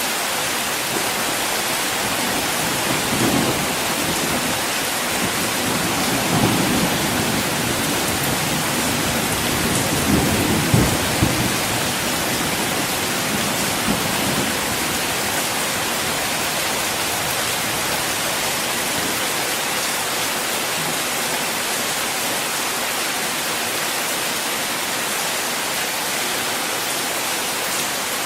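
Steady rain falling on a car, with thunder rumbling low several times in the first half.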